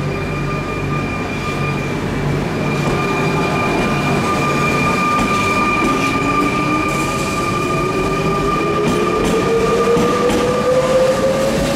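Double-deck RER C electric multiple unit rolling past and picking up speed. Its motor whine rises steadily in pitch through the second half, over two steady high electrical whines and wheel and rail rumble.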